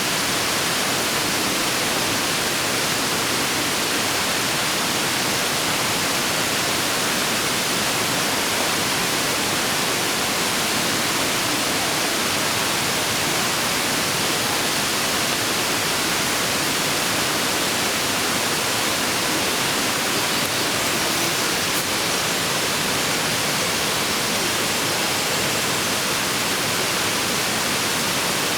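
Waterfall: a steady, even rush of falling water that does not let up.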